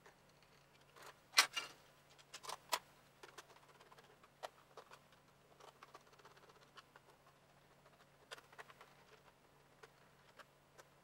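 Screwdriver turning screws into a plastic Nerf Supermaxx 5000 blaster shell, with scattered clicks, taps and scrapes of hard plastic as the shell is handled. The sharpest knocks come about a second and a half in.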